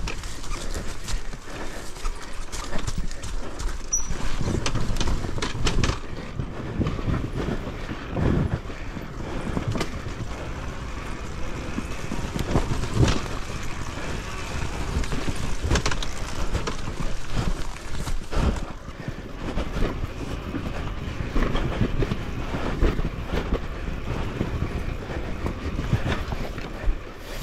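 KTM enduro dirt bike ridden along a rutted forest singletrack: the engine runs low under the constant clatter, with many knocks and rattles as the bike goes over bumps.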